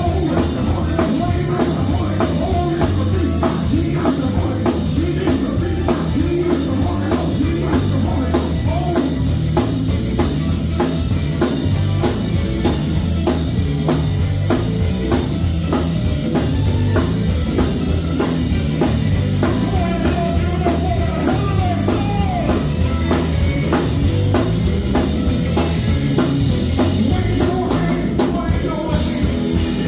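Live gospel band playing loudly, with a drum kit keeping a steady beat over a heavy bass line.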